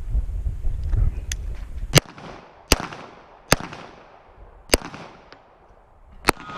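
Handgun shots fired at an uneven pace, five loud cracks spaced roughly one to one and a half seconds apart, each followed by a short echo.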